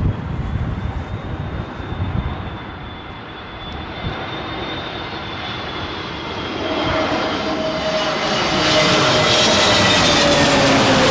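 Jet airliner's engines growing louder as it comes close, with a steady whine that slowly drops in pitch as the aircraft passes; the aircraft is going around rather than landing. Gusty wind rumbles on the microphone in the first few seconds.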